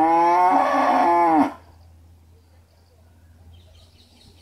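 A calf mooing once: one loud, drawn-out call that rises in pitch, holds, then drops and stops about a second and a half in.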